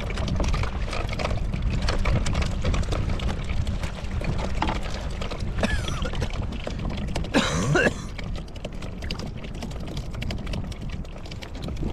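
Wind buffeting the microphone and water slapping around a fishing kayak, with small clicks and rattles of rod, reel and tackle being handled. Two short squeals that slide in pitch, the louder one about seven and a half seconds in.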